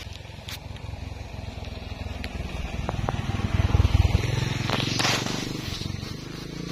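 Leaves and brush rustling as plants are pulled and handled, with a few sharp snaps and a low rumble that swells about 4 seconds in.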